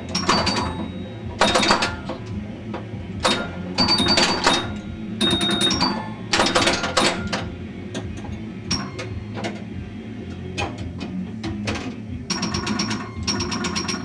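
Bally Strikes and Spares pinball machine in play: clusters of sharp mechanical clacks come every second or so, from pop bumpers and other playfield parts firing, with short ringing electronic tones over them. Past the middle the clusters thin to scattered single clicks, then they come thick again near the end.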